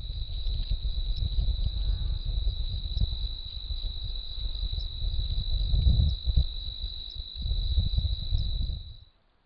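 Crickets trilling steadily at night, one continuous high-pitched chirring, over a loud, uneven low rumble; both cut off shortly before the end.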